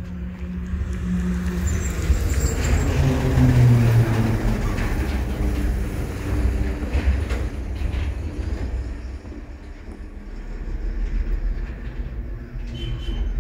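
A motor vehicle passing close by: a low engine rumble that swells, its pitch sliding down as it goes past, then eases and swells again near the end.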